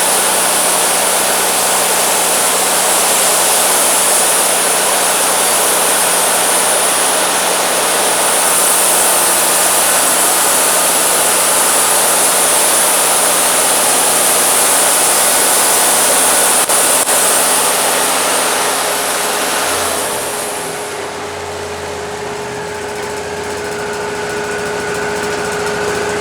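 Wood-Mizer LT40 band sawmill making a skim cut through driftwood: the engine runs under load with the blade cutting, a loud steady noise with a high hiss. About 20 seconds in the cut ends and the sound drops to a quieter, steady running hum.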